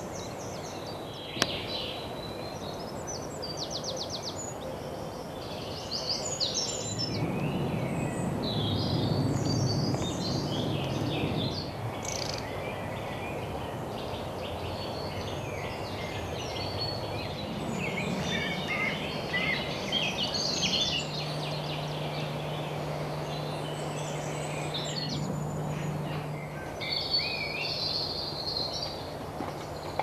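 Wild songbirds singing and chirping, several overlapping. A single sharp click comes about a second in, and a low steady hum joins for a few seconds past the middle.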